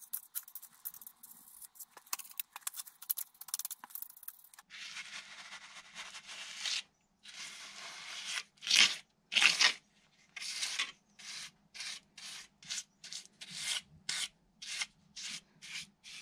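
Small trowel spreading wet render over a wall in repeated scraping strokes. After a few scattered light scrapes, there are some long strokes, then short quick ones about two a second.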